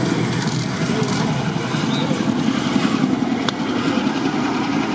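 CH-47J Chinook tandem-rotor transport helicopter running on the ground, a loud, steady turbine and rotor noise.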